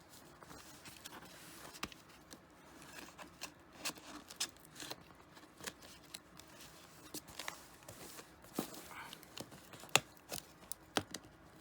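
A package being opened by hand: scattered rustling, scraping and clicking of packaging material, with a sharper knock about ten seconds in.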